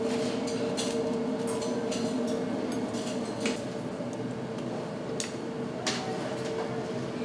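Light clinks and clicks of kitchen utensils and dishes, irregular and scattered, over a steady equipment hum.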